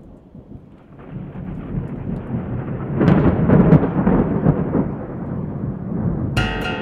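Rolling thunder over rain, swelling from faint to a loud rumble about three seconds in, then easing. Acoustic guitar music comes in just before the end.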